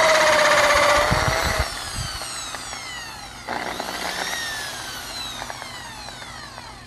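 Electric drill spinning a wooden dowel that is shaved round by old jigsaw blades set in a wooden block: a steady whine with scraping, and a few low knocks, until about a second and a half in, then the drill winds down with falling pitch. About three and a half seconds in it is triggered again briefly and winds down once more.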